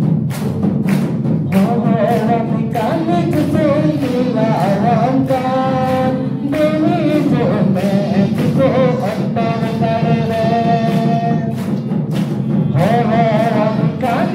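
Voices singing a Santali Christian worship song of adoration, over a steady beat of about two strokes a second.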